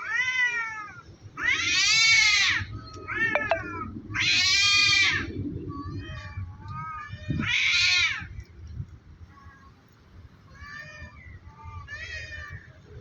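Two cats yowling at each other in a territorial standoff, threatening without actually fighting: long, wavering caterwauls. The three loudest come about two, four and a half and eight seconds in, with shorter, quieter calls between them.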